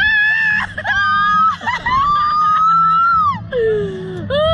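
Women riders on a slingshot ride screaming: three long high-pitched screams, the longest rising then falling in pitch, then a lower falling wail near the end.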